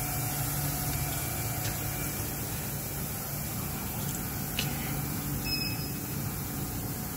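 Steady low electrical hum and hiss of an energized machine control cabinet, its servo drive powered and idle in ready state, with two faint ticks.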